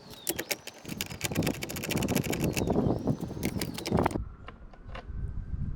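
A quarter-inch ratchet clicking rapidly as the 10mm mirror mounting screws are backed out. The clicking stops abruptly about four seconds in, and a few scattered clicks follow.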